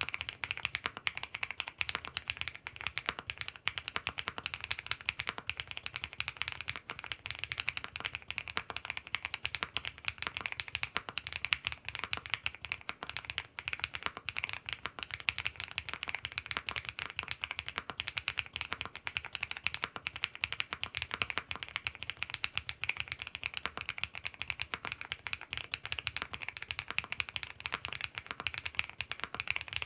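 Womier SK71 Pro, a 75% aluminium-cased mechanical keyboard with linear switches, being typed on continuously: a fast, unbroken stream of key clacks.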